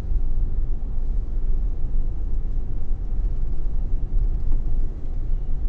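Steady low rumble of a car's engine and tyres heard inside the cabin as it crawls through heavy traffic.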